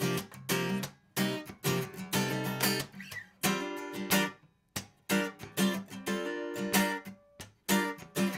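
Guitar strummed in a choppy, rhythmic pattern, each chord cut short between strokes.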